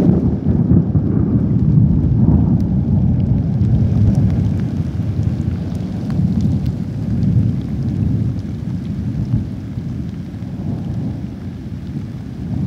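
Rain falling onto a muddy puddle and wet ground, the drops pattering over a deep, continuous rumble that eases off over the last few seconds.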